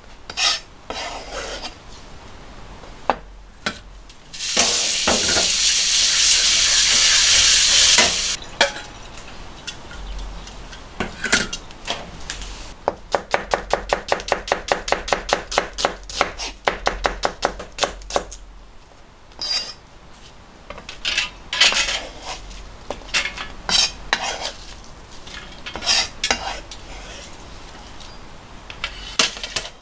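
A kitchen knife chopping vegetables on a plastic cutting board: scattered knocks, then a fast even run of about five strokes a second for several seconds, then more scattered cuts. Early on a few seconds of steady hiss cover the chopping.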